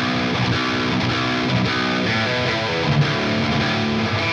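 Recorded distorted electric guitar part played back through a Helix Native amp simulation and an OwnHammer 4x12 Recto cabinet impulse response (V70B speaker) in Two Notes Torpedo Wall of Sound, with the plugin's reverb added.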